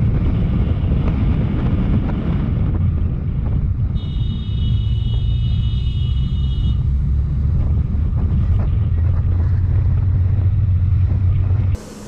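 Motorcycle engine rumbling under wind buffeting on the bike-mounted microphone while riding along a street. A high steady tone sounds for almost three seconds in the middle.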